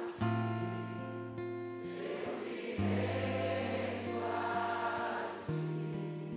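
Soft, slow worship music with sustained chords and choir voices, no words sung; the bass note changes every second or two.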